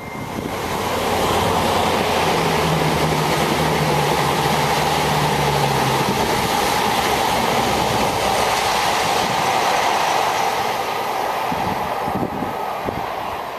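A CrossCountry diesel passenger train passing beneath the bridge at speed. The rumble builds quickly in the first second and then holds steady. A low engine hum shows through the first half, and the sound eases near the end as the train draws away.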